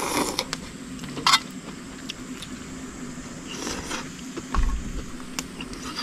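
A person eating hot kimchi sujebi (hand-torn dough soup) from a bowl with chopsticks: a short slurp a little over a second in, among scattered light clicks of chopsticks on the dish, and a low thump near the end.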